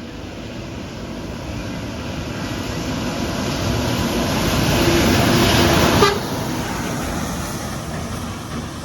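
A tour bus passing close on the road, its engine and tyre noise growing steadily louder, with a short low horn note just before the loudest moment about six seconds in; the noise then drops off suddenly to lighter traffic.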